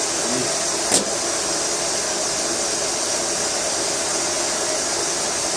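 Steady hissing noise, like a running fan, with a single sharp click about a second in.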